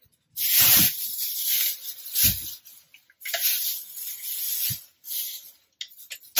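Thin plastic bag rustling and crinkling as it is handled, in three bursts, with a couple of dull thumps between them.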